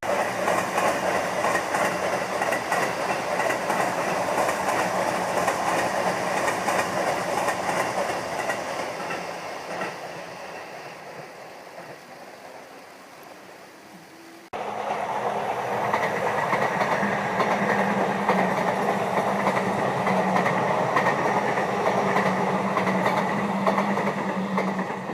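Sotetsu Line electric train running past, its wheels clacking over the rail joints, fading away over several seconds. About halfway through the sound cuts abruptly to a second train passing, loud again until near the end.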